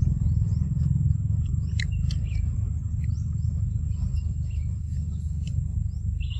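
A steady low rumble with faint, scattered bird chirps and a thin, steady high-pitched tone behind it.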